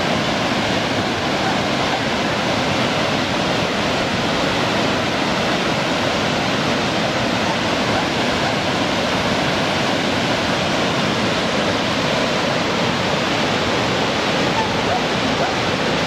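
Waterfall plunging into a rock pool, with the stream rushing over boulders below: a steady, even roar of falling and running water.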